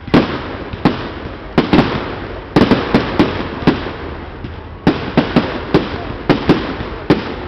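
Aerial firework shells bursting in quick succession: a rapid string of loud, sharp bangs, about two a second, over a continuous rush of noise.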